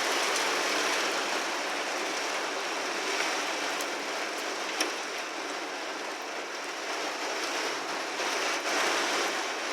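Heavy rain pouring down steadily, with a few sharp ticks around the middle.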